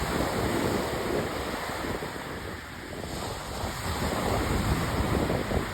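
Wind buffeting the microphone over the steady wash of sea waves on the beach.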